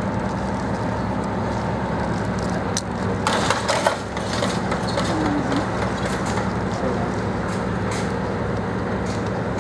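Diesel locomotive engines of a Class 55 Deltic and a Class 37 running steadily at rest, a low even drone. A short burst of crackling and clicks about three seconds in.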